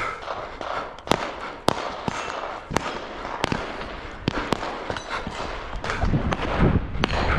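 Scattered gunshots, about eight sharp cracks at irregular spacing. A low rumble comes in about six seconds in.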